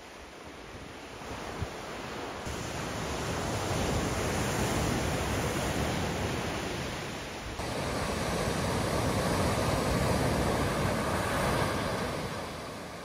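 Ocean surf washing up a gravel beach, the rush of water swelling and falling away twice.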